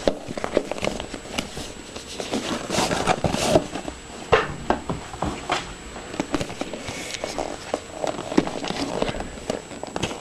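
Cardboard phone packaging handled by hand: irregular rustling, scraping and small knocks as the box is opened and the inner box slid out.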